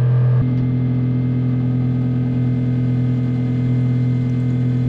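Schenker ZEN 30 watermaker's electric pump running with a steady hum as pressure builds in the membranes. About half a second in there is a click and the tone shifts, the clicking of its energy recovery system (Clark pump).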